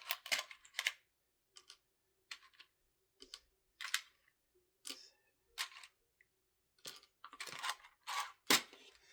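Plastic building-brick pieces clicking as they are handled and pressed together, in a string of irregular sharp clicks that bunch up at the start and again near the end.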